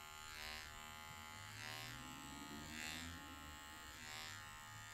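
Electric hair clippers buzzing steadily while cutting a man's hair, the buzz rising and falling slightly about once a second.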